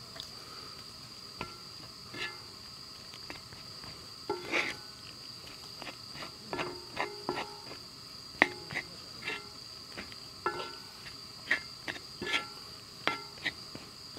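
Spatula scraping and knocking on a griddle pan as rice is stir-fried over a portable gas stove: irregular knocks and scrapes, coming thicker in the second half, the sharpest about 8 s in. Behind it, crickets chirr in a steady high trill.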